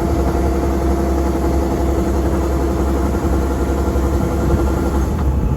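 An engine running steadily at an even speed, a constant low drone with a held tone that shifts slightly near the end.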